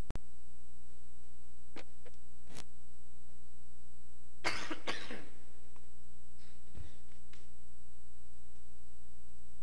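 A man coughs into his hand about four and a half seconds in, with a few faint clicks before it and a dull thump after, over a steady electrical hum.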